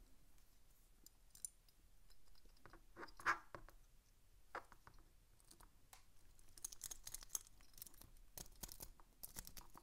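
Faint scratching and clicking of a wave rake being jiggled in the keyway of a five-pin dimple lock, alongside the pins under a thin tension tool, with a denser run of rapid clicks over the last few seconds.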